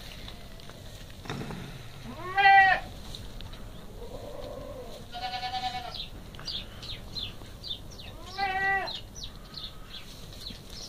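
Newborn goat kids bleating: three high calls about three seconds apart, the middle one wavering.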